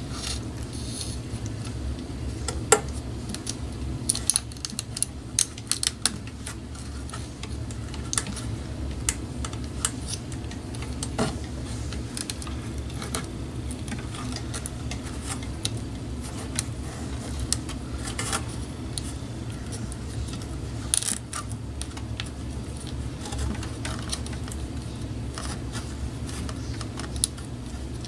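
Scattered small clicks and clinks of parts and wiring being handled on a workbench, loudest in a cluster about four to six seconds in and once near twenty-one seconds, over a steady low hum.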